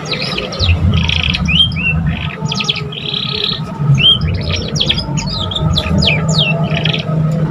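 Young domestic canary practising its song: quick chirps, rapid trills and rising whistled notes, with a short buzzy phrase about three seconds in. A steady low hum runs underneath.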